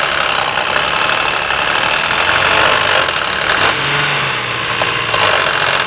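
Mazda Xedos 6's 2.0-litre KF V6 engine running with a knock, which is said to come in below about 2500 rpm and vanish above it. About four seconds in the revs rise briefly and fall back.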